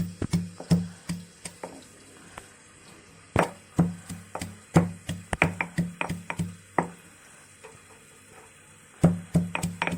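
Pestle pounding cooked brinjal, tomato, green chillies and garlic in a small stone mortar for a chutney: irregular thuds, several a second, with pauses about two seconds in and again about seven seconds in.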